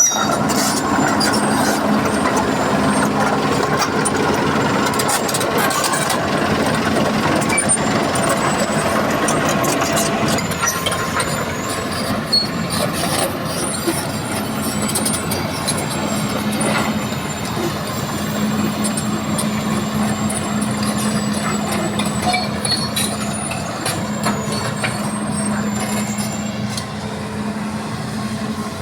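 Heavy diesel engine of a hydraulic excavator running steadily under load while it digs and loads soil into a dump truck, with scattered metallic clanks and knocks from the work, most frequent in the first ten seconds.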